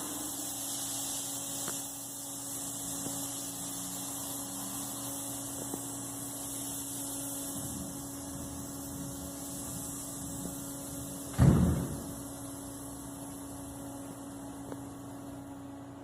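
Steady hum of a CNC machine and cobot cell running. A single heavy thud comes about eleven seconds in.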